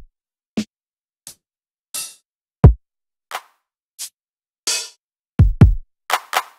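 Drum samples triggered one at a time by finger taps on the pads of a Native Instruments Maschine Studio: single kick drum thumps with a falling pitch, snares and hi-hats, spaced unevenly rather than in a steady beat, with two kicks in quick succession about five and a half seconds in.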